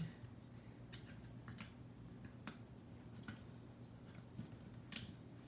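Faint, scattered clicks and taps of plastic parts and a circuit board being slid into place in an opened FrSky X-Lite radio transmitter's case, about eight in all, over a low steady hum.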